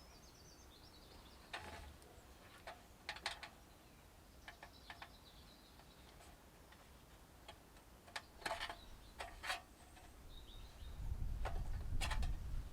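Scattered light clicks and clinks of the Firebox Scout stove kit's metal parts being handled and fitted into the billy pot, with a low handling rumble near the end.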